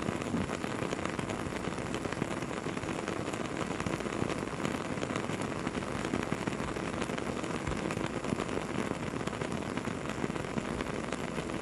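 Campfire crackling steadily, with a constant hiss and many small pops and snaps from the burning wood.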